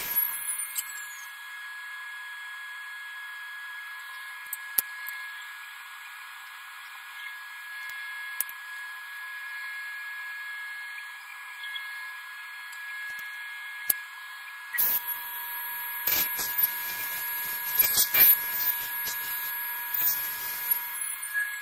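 Table saw motor running with a steady whine. For the last several seconds the blade cuts through wood, adding a rougher, crackling noise, and right at the end the motor's pitch starts to fall as the saw winds down.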